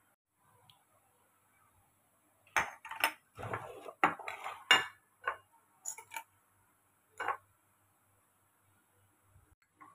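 Metal spoon clinking and scraping against a steel plate as paste and spices are spooned onto it: a run of clinks and scrapes in the middle, then a few single clinks.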